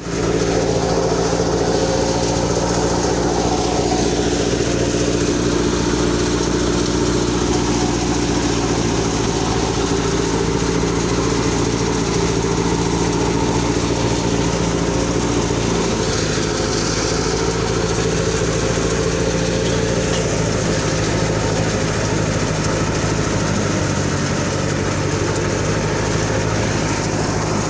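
Engine of wheat-harvesting machinery running steadily under load, its pitch shifting slightly about halfway through and again near the end.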